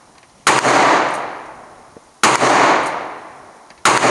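Three loud gunshots from other shooters' firearms nearby, roughly a second and a half to two seconds apart, each followed by a long echoing tail.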